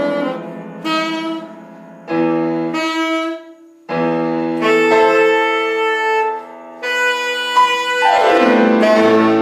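Saxophone playing a jazzy melody over piano accompaniment. Short phrases come with brief gaps, then long held notes. A quick downward slide about eight seconds in leads into a final held note.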